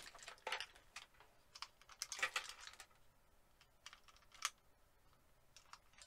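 Scattered light clicks and rattles of a screwdriver and small parts being handled, with a denser scratchy cluster about two seconds in.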